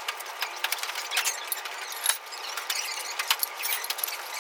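Cow tearing and chewing grass: a dense run of irregular, crisp crunches and clicks.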